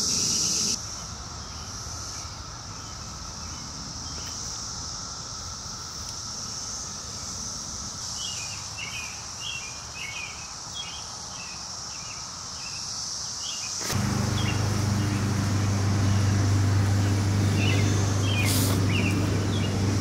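Periodical cicadas droning steadily in a background chorus, with birds chirping on and off. About fourteen seconds in, a loud low steady hum joins and becomes the loudest sound.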